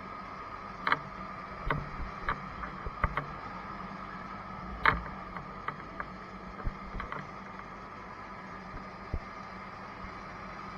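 Fire engine running steadily at the pump panel, its engine and fire pump giving a steady hum, with scattered clicks and knocks over it. The loudest knocks come about a second in and about five seconds in.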